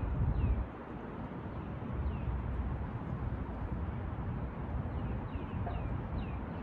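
Wind buffeting the microphone with a low, gusting rumble, loudest in the first half second. A small bird gives short falling chirps a few times, most of them in the second half.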